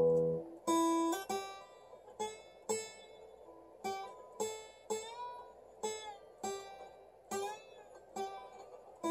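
Acoustic guitar played slide-style, with a chicken bone as the slide: single notes picked one at a time, about one or two a second, several gliding in pitch as the slide moves, each ringing out.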